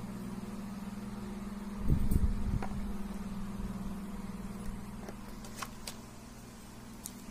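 Handling noise from taking wired earphones out of a clear plastic blister pack: a burst of low bumps about two seconds in and a few light plastic clicks later, over a steady low hum.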